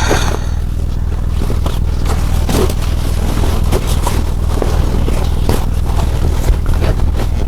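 Electric sewing machine running steadily as it stitches a seam, a constant motor hum with the rapid beat of the needle, plus small scrapes of the material being fed through.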